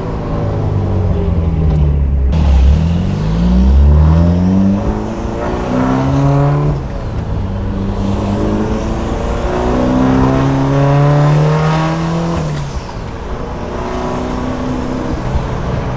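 Turbocharged four-cylinder engine of a Mitsubishi Lancer Evolution under acceleration, its pitch climbing several times and dropping back between gear shifts.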